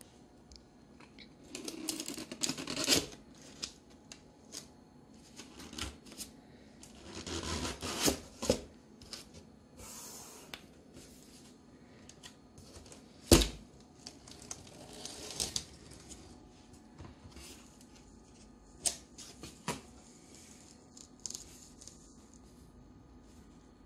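Cardboard box flaps and packing being opened and handled: rustling and scraping of cardboard and paper in several bursts, with a sharp knock about halfway through and a few light clicks near the end.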